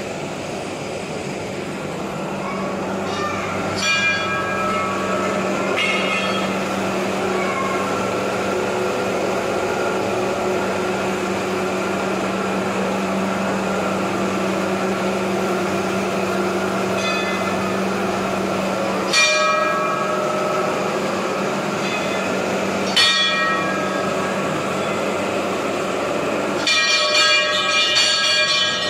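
Brass temple bells struck one at a time every few seconds, each strike ringing on, then rung rapidly over and over near the end, over a steady hum.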